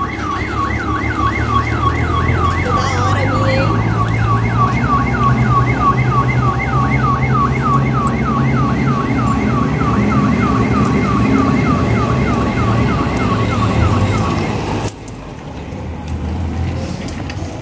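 An electronic siren going in fast falling chirps, about three a second, over the steady low running of a truck's diesel engine. Both cut off abruptly near the end, leaving quieter road background.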